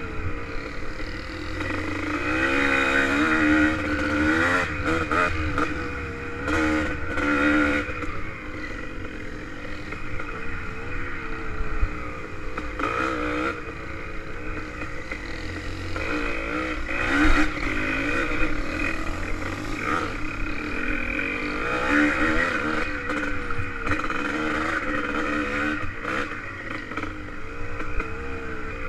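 1985 Yamaha IT200's two-stroke single-cylinder engine being ridden, its pitch rising and falling over and over as the throttle is worked, with scattered knocks and rattles from the bike over rough ground.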